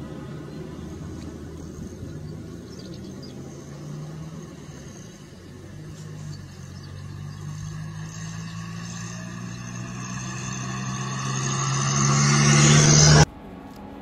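An engine running with a steady low hum, growing louder over the last few seconds and cutting off abruptly near the end.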